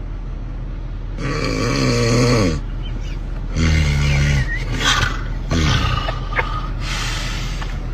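Loud snoring: three snores, the first and longest about a second and a half, the second lower, the third short, over a steady low hum.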